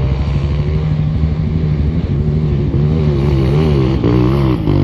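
Dirt bike engines: a trail motorcycle running close by while another climbs the dirt track, its revs rising and falling several times in the second half.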